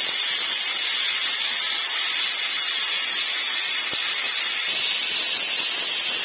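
Stovetop pressure cooker whistling: steam jets out of the weighted valve in a loud, steady hiss. The cooker is at full pressure, and each whistle is counted to time the rice.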